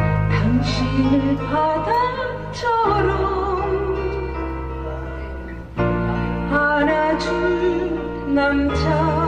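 A Korean trot duet sung live over a backing track, with a steady bass and accompaniment. A woman's voice carries the line, with wavering vibrato on its held notes. The voice breaks off for a few seconds in the middle while the accompaniment carries on.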